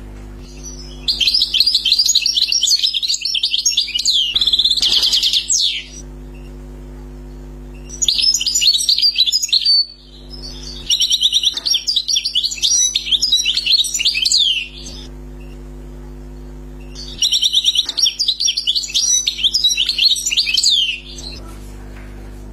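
European goldfinch singing the song that Algerian keepers call tebnaj: four bouts of rapid high twittering and trills, each about two to five seconds long, with short pauses between them.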